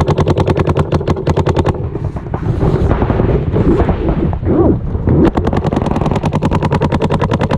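Planet Eclipse CS2 electronic paintball marker firing rapid strings of shots, about ten a second. The firing stops about two seconds in and starts again a little after five seconds.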